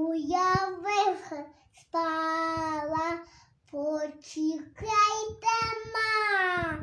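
A little girl singing a Ukrainian Christmas carol (koliadka) unaccompanied, in four short held phrases with brief breaths between them. The last note slides down near the end.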